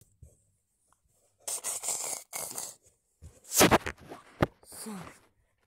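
Fabric rustling and scraping close to the phone's microphone as it moves over bedding and a plush toy, in several short bursts, with a knock about four and a half seconds in.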